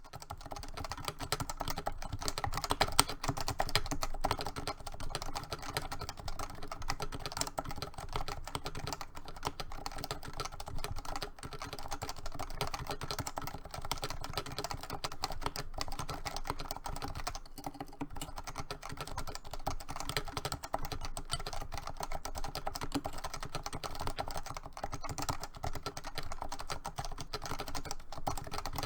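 Continuous fast typing on a Leopold FC660C keyboard with 45 g Topre electrostatic capacitive switches, a dense, steady stream of key presses.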